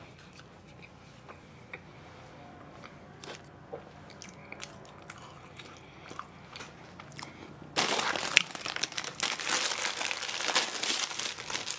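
Faint small clicks, then from about eight seconds in, loud, dense crinkling of a plastic bread bag being opened around a chocolate-filled bun.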